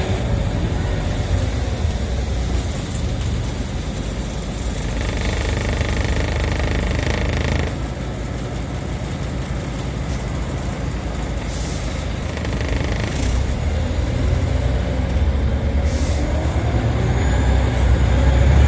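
Scania Omnicity single-deck bus heard from inside while moving: a steady engine and road rumble, with air-brake hisses, one lasting a couple of seconds from about five seconds in and cutting off suddenly, a shorter one around twelve seconds. Near the end a whine rises in pitch as the bus picks up speed.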